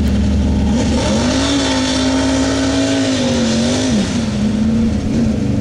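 Engine of a lifted Ford pickup mud truck revving hard as it ploughs through a mud pit. The pitch climbs about a second in, holds high, then drops near four seconds in before picking up again.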